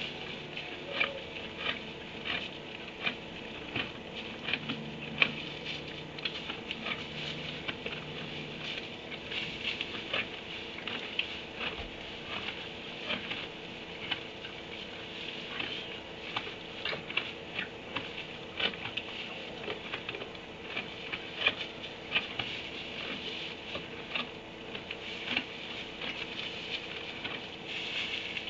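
Quiet barn room tone: irregular light ticking and pattering, several a second, over a steady electrical hum.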